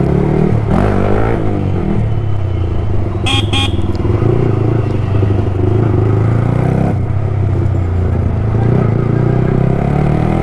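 Yamaha R15 V3's single-cylinder engine running steadily at low speed, picking up in first and then second gear. A vehicle horn toots twice, briefly, about three seconds in.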